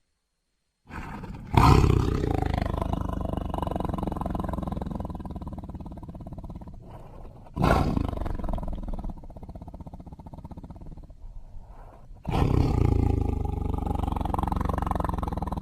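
Tiger roaring: three long roars, each starting suddenly and fading slowly into a low rumble, the first about a second and a half in, the last running on near the end.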